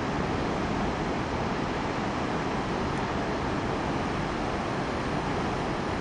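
Large waterfall fed by dam outflow, a river dropping about 90 metres into churning white water: a steady, even rush of falling water.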